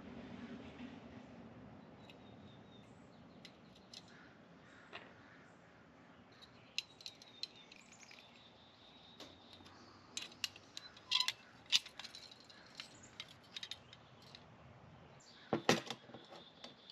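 Small metal hardware being handled: scattered light clicks and clinks of bolts, nuts and washers, coming thicker in the second half, with a louder clatter near the end.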